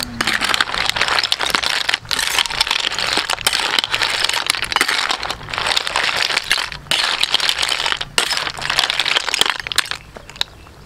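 Snail shells clattering and crackling against each other and the metal pan as they are stirred while steaming, with many sharp clicks over a dense hiss. It stops about a second before the end.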